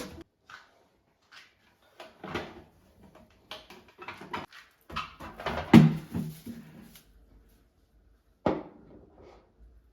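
Household objects being handled: a run of clicks, knocks and rustles, with a sharp knock about six seconds in and another near eight and a half seconds.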